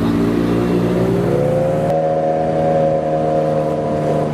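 Small fishing boat's motor speeding up, its pitch rising over about two seconds and then running steady at the higher speed.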